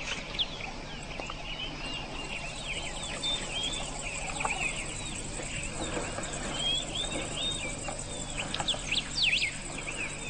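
Many small birds chirping in quick, overlapping short notes, with a steady high insect hiss underneath.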